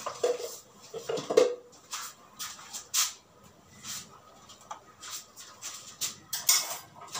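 Scattered clinks and knocks of kitchen bowls and utensils being handled and set down on a counter, with two brief pitched sounds in the first second and a half and a short hiss near the end.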